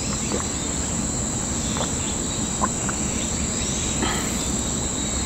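Insects chirring in a steady, unbroken high-pitched drone over low background noise, with a few faint small clicks, the sharpest about two and a half seconds in.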